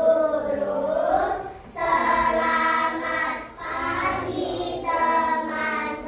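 A group of children singing together in unison, in long held notes of about a second each with short breaks between phrases.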